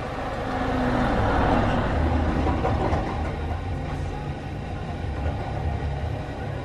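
FM car radio tuned to a weak, distant station on 92.7 MHz: a steady rush of reception noise with faint program audio beneath, swelling from about one to three seconds in.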